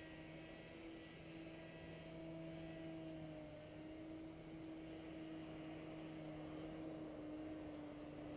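Distant paramotor engine running steadily, heard as a low hum whose pitch wavers slightly.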